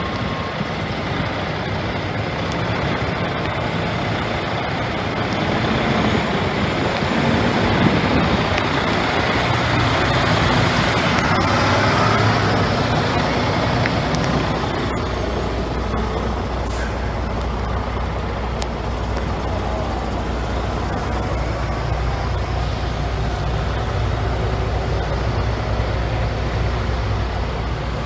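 Diesel engine of a 2014 Freightliner day-cab road tractor idling steadily, a low even hum heard first beside the open hood and then from inside the cab.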